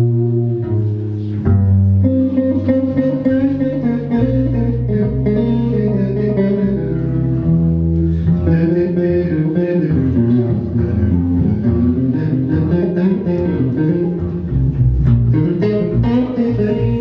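Upright double bass played pizzicato in an instrumental passage with no singing: a steady run of changing plucked notes over low bass tones.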